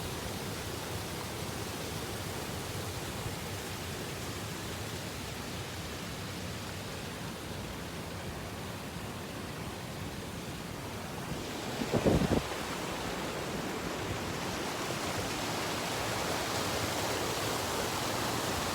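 Steady rushing of a small waterfall and stream. A short, low thump breaks in about twelve seconds in.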